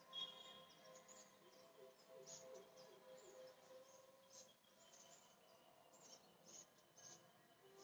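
Near silence, with faint, scattered short bird chirps.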